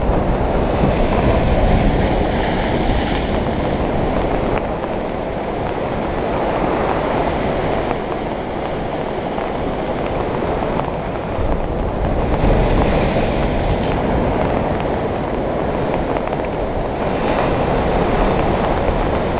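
Sea waves breaking and washing on a beach: a steady rushing surf that swells and eases every few seconds.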